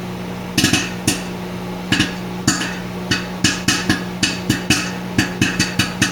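Popcorn kernels popping in a Rapid Brands microwave popcorn popper over the steady hum of a running microwave oven. The sharp pops come a few at a time at first and grow more frequent toward the end, several a second.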